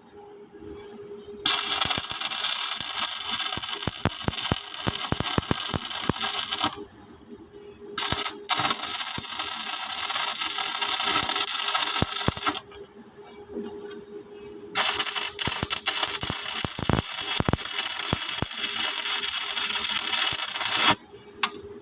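Electric welding arc on steel hissing and crackling in three runs of about four to six seconds each, stopping between runs, over a steady faint hum.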